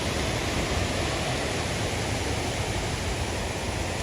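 Steady rush of water from a nearby waterfall, an even roar with no breaks.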